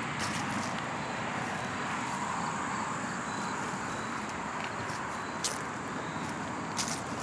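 Steady outdoor ambient noise, with a couple of faint clicks near the end.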